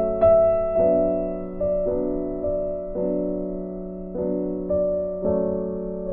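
Soft background piano music: gentle notes struck every half second or so and left to ring and fade.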